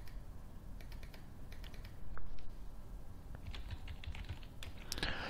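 Typing on a computer keyboard: scattered key clicks in short runs, with a louder cluster about two seconds in and a quicker run near the end.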